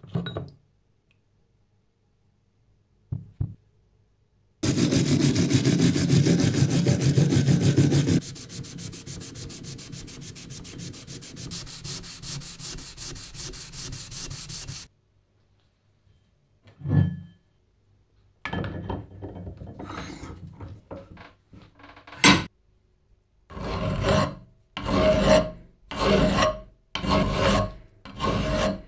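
Metal threaded spindle being scrubbed by hand on a towel: a few seconds of loud, fast scrubbing, then softer scrubbing. After a knock and a sharp click, a hand file cuts across a metal foot of the press in even strokes, about one a second.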